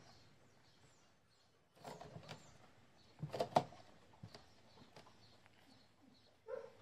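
Faint birds chirping, with a few soft clicks and scuffles from dogs moving about on the tiles around two and three and a half seconds in, and one short dog bark near the end.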